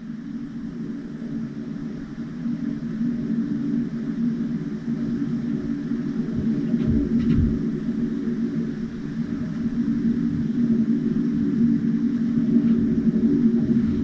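Steady low engine rumble that grows gradually louder, with a couple of deep thumps about seven seconds in.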